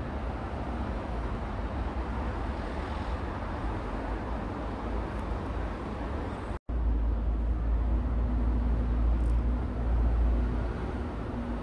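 Steady city traffic noise, with a heavier low rumble for a few seconds after a brief cut-out about six and a half seconds in.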